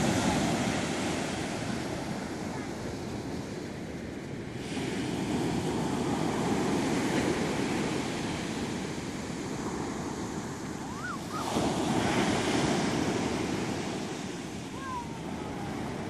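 Heavy Atlantic surf breaking on a sandy beach, the rush of water swelling and fading three times as successive waves break and run up the sand.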